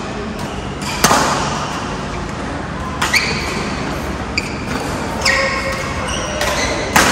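Badminton racket strikes on the shuttlecock during a rally, sharp cracks about every two seconds, with sneakers squeaking briefly on the court floor between shots. The hall's echo is heard.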